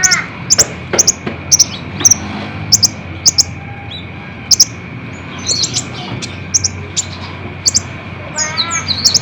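Kolibri ninja sunbird calling: sharp, very high chips repeated about twice a second, with a short break about halfway through, over a steady faint high whine. Near the end a quick run of lower, falling chirps.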